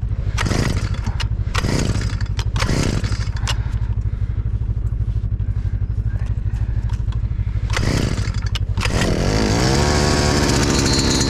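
Small petrol engine running with a steady low drone and several brief surges, then revving up with a rising pitch about nine seconds in.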